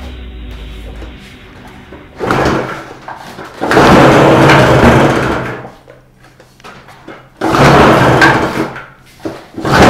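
A small two-stroke portable generator engine (TG950 type) being pull-started with its recoil starter. It fires in three short bursts a second or two long and dies between them, then catches near the end and keeps running.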